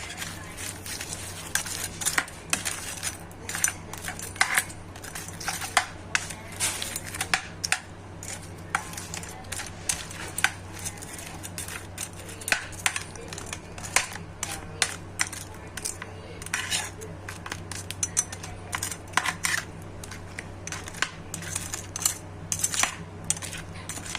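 Metal utensil clinking and scraping against a kawali, with many irregular strokes throughout, over a steady low hum.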